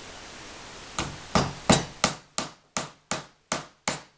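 Hammer driving one-inch barbed nails: a steady run of sharp strikes, about three a second, starting about a second in, the first few loudest.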